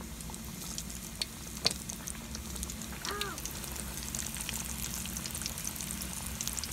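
Breaded iguana legs and tail pieces deep-frying in hot oil in a wok, a steady crackling sizzle. A sharp click comes about a second and a half in, and a short chirp about three seconds in.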